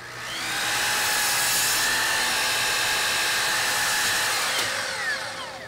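Festool sliding miter saw motor spinning up with a rising whine, running steadily as the blade crosscuts a thin walnut strip, then winding down with a falling whine near the end.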